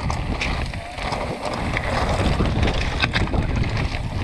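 Mountain bike riding fast down a loose slate and gravel trail: tyres crunching over stones and the bike rattling, with sharp clicks of stones and parts, a cluster of them about three seconds in. Wind rumbles on the microphone throughout.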